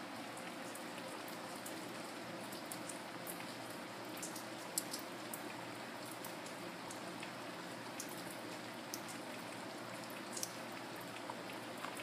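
Steady rain falling, with single drops clicking sharply now and then, the loudest about five seconds in.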